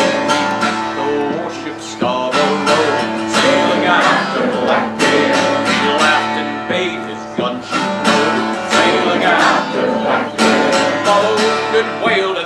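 Steel-string acoustic guitar strummed steadily while a man sings a folk ballad.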